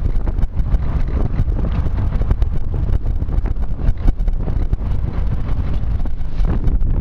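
Heavy wind buffeting the microphone over the rumble of a moving pickup truck, heard from its open bed.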